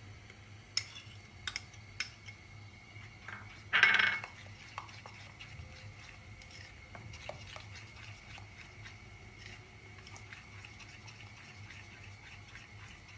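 A metal spoon clinking against a ceramic bowl as green chutney is scraped out of it, with a louder clatter about four seconds in. Then the spoon stirs chutney into fermented rice-and-urad-dal dhokla batter in a glass bowl, with soft scraping and light taps on the glass.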